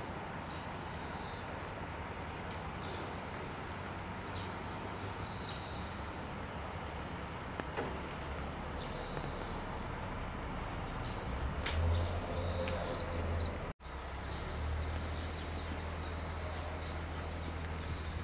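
Outdoor ambience: a steady rush of distant traffic, with a few short bird chirps now and then and a low hum that comes in about twelve seconds in.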